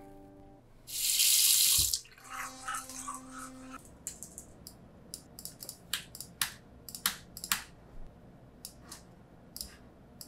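Bathroom tap running for about a second, then a short steady hum. After that, scattered key clicks of typing on a low-profile computer keyboard.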